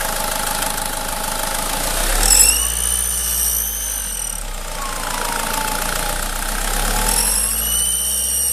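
SsangYong Kyron turbodiesel engine idling, then revved twice, about two seconds in and again near the end. Each rev brings in a high whistle from the turbo side, which the owner is trying to trace and suspects comes from an air or vacuum leak.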